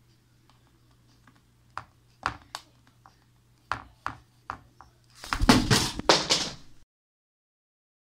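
Indian ringneck parrot's beak tapping on a smartphone on a wooden table: about six sharp separate clicks. About five seconds in comes a louder scuffling flurry lasting about a second and a half as the bird slips off, then the sound cuts off suddenly.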